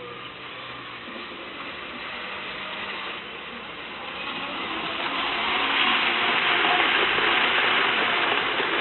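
Model ICE train running on the layout's track: the motor and wheels on the rails make a steady whirring hiss that builds as it comes closer, loudest from about five and a half seconds in to near the end.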